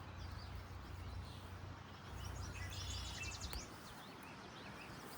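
Quiet outdoor ambience at a fishing spot: a low steady rumble that stops about three and a half seconds in, and a bird giving a quick run of short high chirps a little past the middle.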